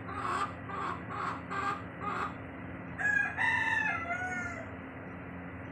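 Chickens clucking in a quick run of short calls, then a rooster crowing once about three seconds in, the loudest sound.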